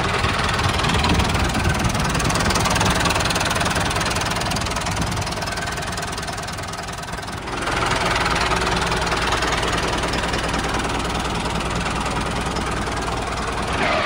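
Tractor engine running steadily at idle, easing off a little and then picking up again about halfway through.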